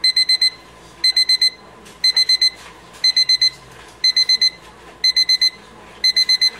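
Electronic alarm beeping in groups of four quick, high-pitched beeps, each group repeating about once a second, in the pattern of a digital alarm clock.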